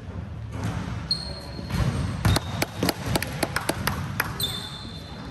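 Basketball bouncing on a hall floor amid players' play: a quick run of sharp thuds about two seconds in, with short high squeaks before and after.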